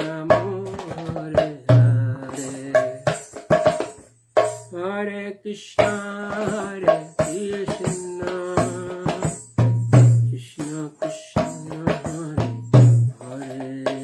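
Kirtan devotional music: drums and jingling percussion keep a steady rhythm over sustained melodic tones, with a brief break about four seconds in.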